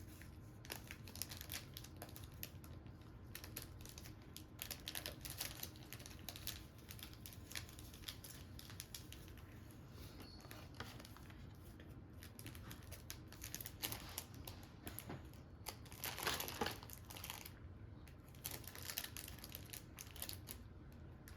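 Light crinkling of plastic packaging and small scattered clicks and taps, with a busier patch of crinkling about two thirds of the way through.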